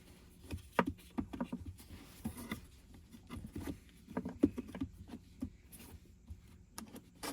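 Plastic USB hub docking station being handled and angled into its slot under the center console: irregular light clicks, taps and scrapes of plastic against plastic.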